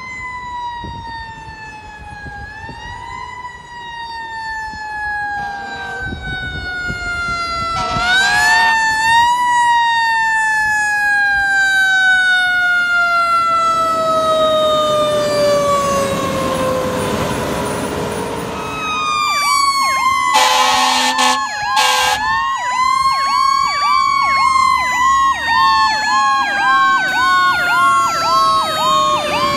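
Fire truck sirens: a long wail that rises twice and then slowly falls. About two-thirds of the way through, a second siren's rapid yelp joins it, along with two short horn blasts.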